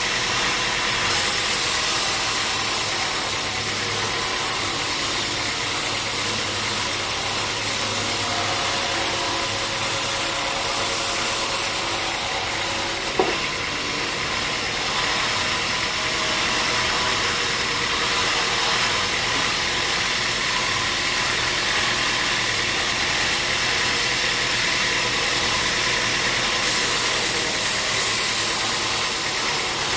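Sawmill machinery running steadily: a motor's even hum under a high hiss that strengthens about a second in, eases around the middle with one sharp knock, and strengthens again near the end.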